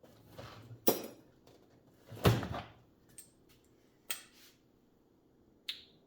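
Metal clanks and rattles from a box fan's rear wire grille being handled and taken off. There are four separate knocks, the loudest about two seconds in.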